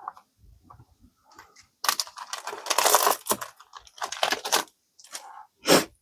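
Trading cards being handled, a few seconds of dense crackly rustling starting about two seconds in, then two short rustles near the end.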